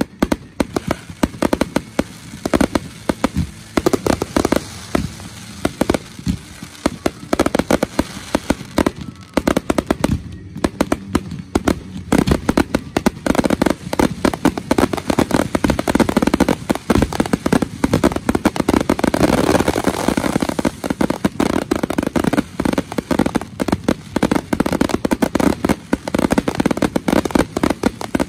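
Finale barrage of aerial fireworks: a rapid, unbroken string of launch thumps and shell bursts, growing into a near-continuous volley about twelve seconds in.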